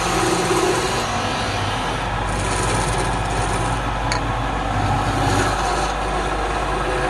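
Woodturning lathe running steadily, its motor humming under the rasping, scraping noise of a turning tool cutting the spinning wood.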